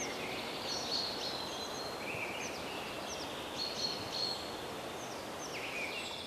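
Woodland birds singing: many short chirps and trills from several birds, over a steady background hiss.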